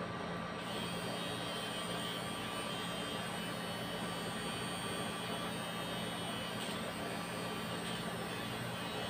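Electric rotary nose hair trimmer running inside the nostril with a steady motor hum and whine as its spinning blade cuts nose hairs.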